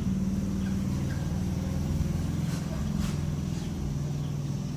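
Low, steady hum of a running engine, its pitch shifting slightly about halfway through.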